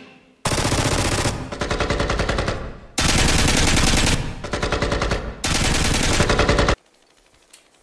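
Automatic rifle fire in three long bursts of rapid shots, each starting and cutting off abruptly, the last one shorter.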